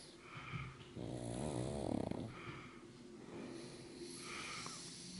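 Pug snoring quietly in its sleep: a buzzy, pitched snore about a second in, with softer breaths recurring every two seconds or so.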